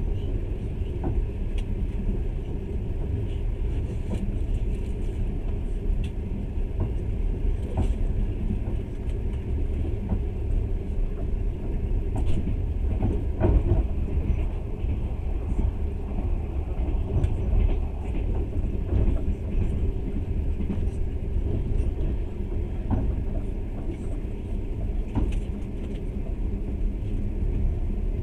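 Passenger train running steadily, a continuous low rumble heard from inside the carriage, with occasional faint clicks and knocks.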